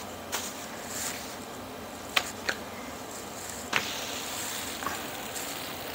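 Handling at the stove while flour tortillas go onto a metal comal: four short sharp taps and clicks, over a steady hiss.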